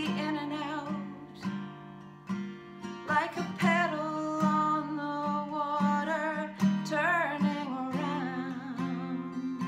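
A woman singing while strumming a Takamine acoustic guitar fitted with a capo, with steady, even strums under her held, wavering sung notes.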